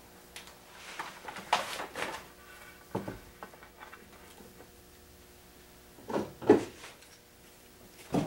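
Bar clamps being set and tightened on an edge-glued board: a few separate clunks and scrapes of metal clamp jaws sliding on their bars and knocking against the wood.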